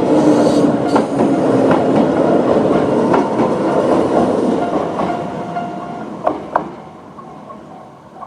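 Toyama Chihō Railway 10030-series electric train running through the level crossing, its wheels clacking over rail joints about once a second. The rumble fades away after about five seconds as the train moves off.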